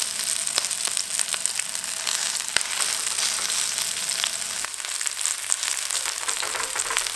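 Scallions frying in hot olive oil in a cast iron frying pan: a steady sizzle with scattered crackles and pops.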